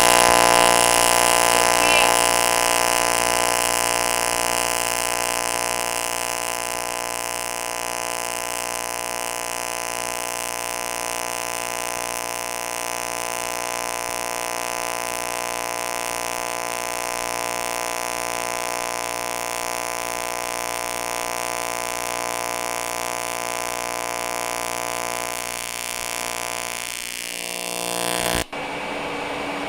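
AC TIG welding arc on aluminum, a steady buzz, as a bead is run with 5356 aluminum filler rod fed in. It cuts off abruptly near the end.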